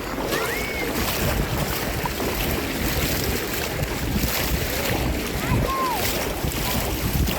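Sea waves washing and churning, with wind buffeting the microphone in a steady low rumble. A few short high calls that rise and fall sound over it, one about half a second in and a couple near the six-second mark.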